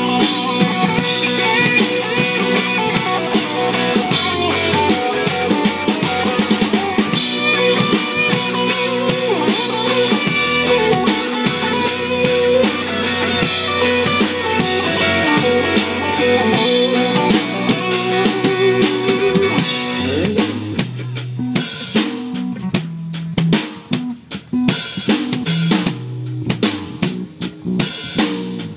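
Live band with a drum kit and guitar playing. About two-thirds of the way through the sustained instrument parts thin out, leaving mostly drum hits.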